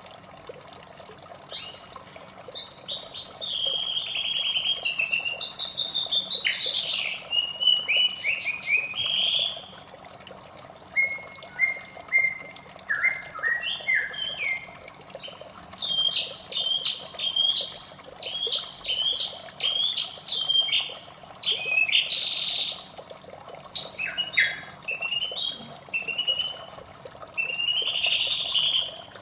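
White-rumped shama singing varied, rapidly changing whistled phrases that start about a second and a half in, over a steady rush of water.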